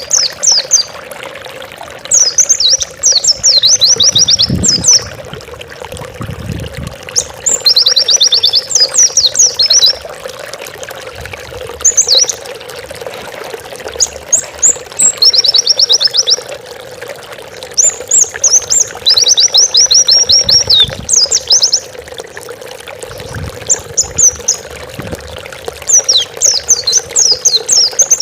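White-eye (pleci) singing a lively song in repeated phrases of rapid, high chirps, each phrase one to two seconds long with short pauses between. A steady hiss runs underneath.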